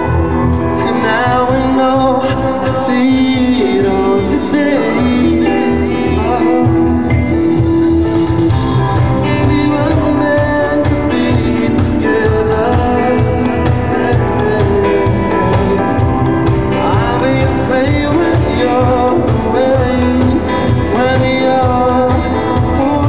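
Live pop band music with a male lead vocal over electric guitar and drums, with a steady beat.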